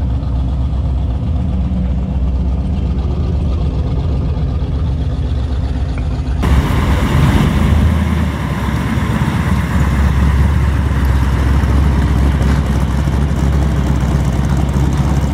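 Car engines rumbling at low speed as classic cars roll past one after another. About six seconds in, the sound cuts abruptly to a louder stretch as a Plymouth Barracuda drives by close, followed by a Corvette.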